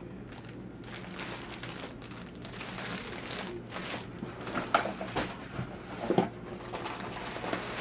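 Clear plastic poly bags crinkling and rustling as bagged jeans are lifted and shuffled inside a cardboard box, with a couple of sharper crackles about five and six seconds in.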